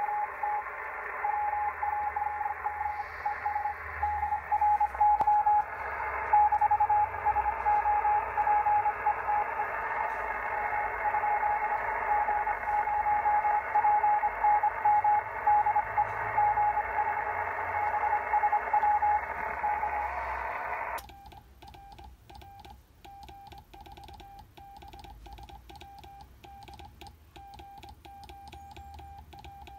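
Morse code on an Icom IC-725 transceiver in CW mode. First an incoming signal is heard as a keyed beep over receiver hiss. About two-thirds of the way through, the hiss cuts off as the set goes to transmit, and the operator sends on a Begali Spark straight key: quieter sidetone beeps with the key's mechanical clicks.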